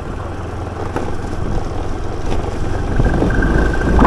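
Scooter engine running with tyre and road noise on a rough concrete lane, growing louder over the last second or so. A thin, high steady tone joins about three seconds in.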